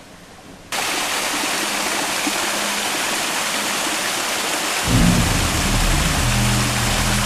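Water rushing down a small stream waterfall, a steady splashing rush that starts abruptly about a second in. About five seconds in, low steady tones join in underneath.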